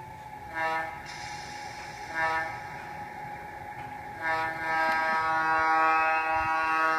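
A large-scale garden railway model locomotive's sound system sounding its horn: two short toots, then a long steady blast starting a little past halfway.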